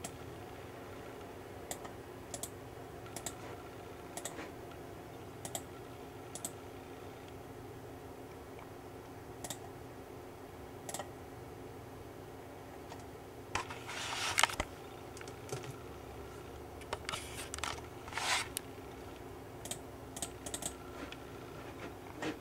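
Computer mouse and keyboard clicks: single clicks every second or so, with two short flurries of key presses around the middle, over a steady faint hum.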